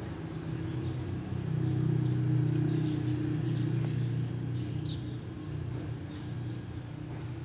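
A motor vehicle's engine hum that swells about a second and a half in and then slowly fades.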